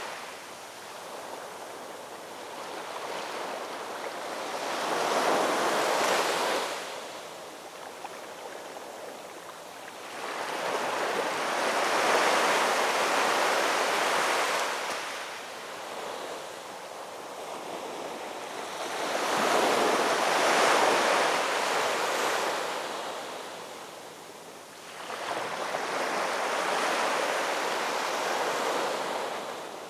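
Ocean waves breaking and washing in, about four swells in the half minute, each surging up and then falling back.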